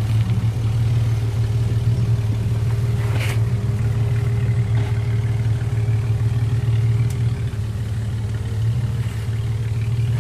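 A four-wheel-drive vehicle's engine running steadily at low revs, with a couple of faint knocks.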